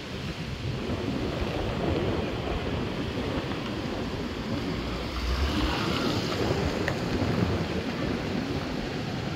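Wind buffeting the phone's microphone outdoors: a steady low rumbling hiss, with a stronger gust about five seconds in.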